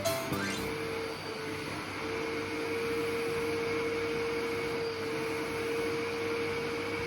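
Vacuum cleaner switched on just after the start, its motor whine rising, then running steadily with a constant hum and whine.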